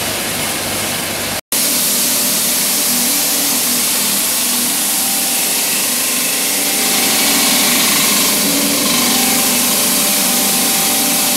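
Steady, loud rushing noise from a pelletizing line's pellet-conveying system: a blower fan pushes air and plastic pellets through stainless steel pipes into a funnel hopper, with a faint machine hum underneath. The sound cuts out for a moment about a second and a half in.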